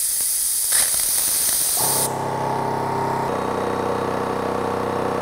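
Compressed air hissing out until about two seconds in. Then the Makita 40V XGT 2-gallon Quiet Series compressor kicks on at its cut-in pressure of about 105 PSI and runs with a steady low hum, shifting pitch slightly about a second later.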